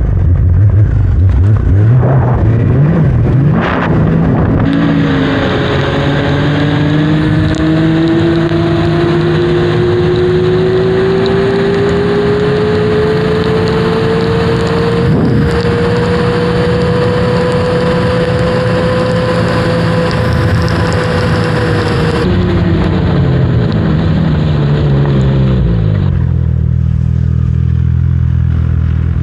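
Snowmobile engine under way: its note climbs steadily for many seconds as speed builds, holds, then drops away about three quarters through and settles to a low steady drone.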